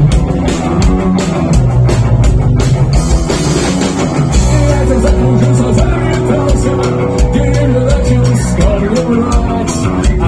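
Rock band playing live: drum kit, bass and guitar. Held melody notes come in about halfway through.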